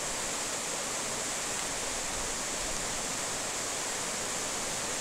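A fast mountain river rushing over boulders in a steady, even whitewater rush, running full after several days of rain.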